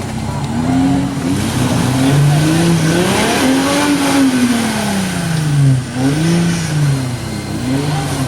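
Four-wheel-drive vehicle's engine revving up and down several times, with one long rise and fall in the middle.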